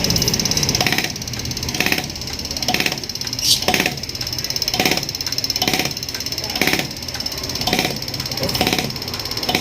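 Komatsu common-rail diesel injector firing under test: a rapid, even ticking with a stronger hissing pulse about once a second.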